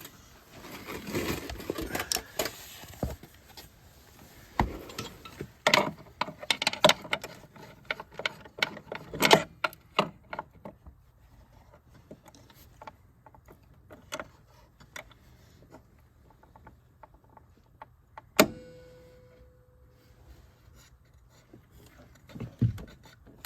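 Metal clanking and rattling as clamps are worked onto a snowmobile's bent bulkhead to pull the gaps tight for welding, busiest in the first half. About eighteen seconds in comes one sharp metal strike that rings briefly.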